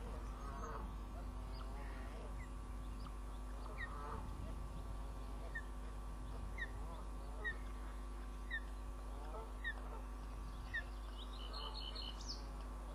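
Ospreys calling at the nest: a series of short, high chirps about once a second, with a few lower chattering calls and a brighter burst of calls near the end, over a steady electrical hum.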